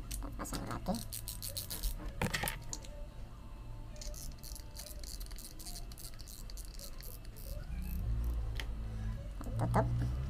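Spinning reel being reassembled by hand: clicks and light rattles of its metal and plastic parts being fitted and turned, with a quick run of fine ticks about four seconds in. A low steady drone comes in near the end.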